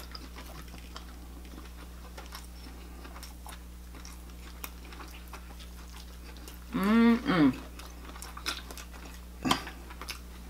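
Close-miked chewing and wet mouth clicks from people eating, over a steady low electrical hum. About seven seconds in comes a short hummed vocal sound that rises and falls in pitch, and a sharp click comes near the end.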